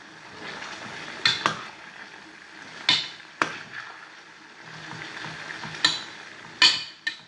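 Sausage and frankfurters with peppers frying with a steady sizzle in an enamel pot, while a spoon stirs them and knocks sharply against the pot several times.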